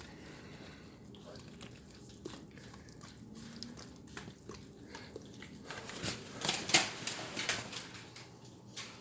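A pet dog close by: small clicks and rustles, with a louder stretch of noisy bursts about six to seven seconds in.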